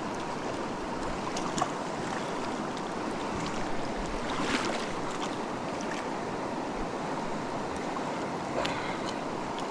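Steady rush of the Pecos River, a mountain trout stream running over rocks.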